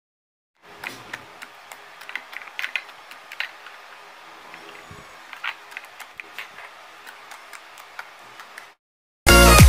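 Homemade slime being stretched and pressed by hand, giving irregular small clicks and sticky pops over a faint hiss. Loud electronic dance music cuts in at the very end.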